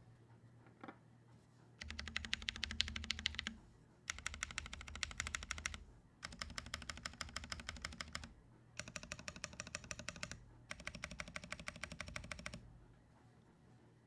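Typing on a Dolice custom mechanical keyboard with lubed Holy Panda tactile switches, aluminum plate and PBT keycaps, no foam: five runs of fast keystrokes about two seconds each, separated by short pauses. A single small click comes about a second in, before the typing.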